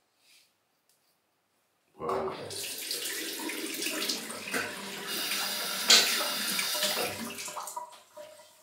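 Water running from a tap into a sink with splashing, starting suddenly about two seconds in and tapering off near the end, as hands are rinsed or water is splashed on the face between shaving passes.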